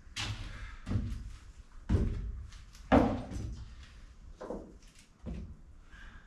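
Footsteps and knocks on the plywood floor of a wooden boat cabin, with clunks as tools and offcuts are gathered up. About six irregular thuds, the loudest about three seconds in.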